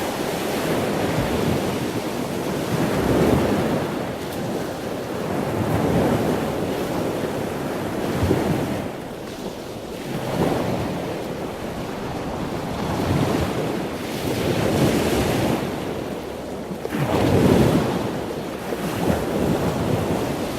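Ocean surf: waves breaking and washing in, swelling and ebbing every few seconds, with wind on the microphone.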